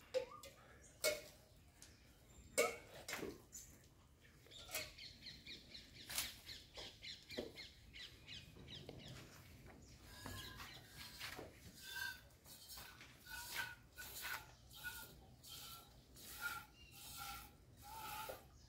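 Jets of milk squirting into a steel pail as a cow is hand-milked, sparse at first and then a steady rhythm of about two to three squirts a second, some with a short metallic ring from the pail.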